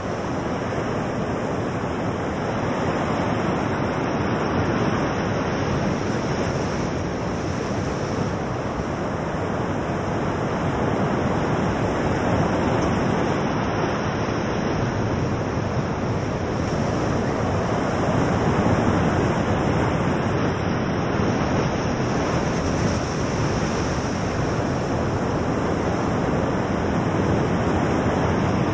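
Ocean surf breaking and washing over rocky ledges: a continuous rushing wash that swells and eases slowly.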